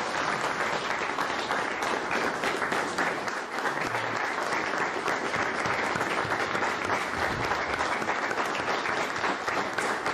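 Audience applauding steadily: many hands clapping in a dense, unbroken patter.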